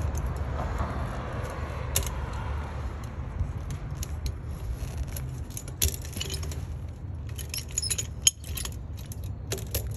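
Steel tire chain links clinking and rattling as a lever load binder is worked to pull the chain tight against a spring tensioner, with sharp metallic clicks that come thick and fast in the second half.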